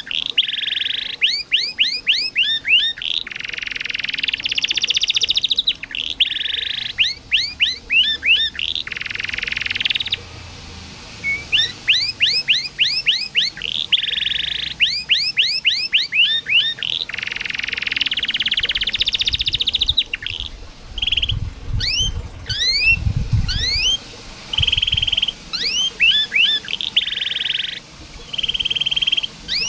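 Domestic canary singing: runs of quick upward-sweeping chirps, several a second, alternating with long buzzing trills.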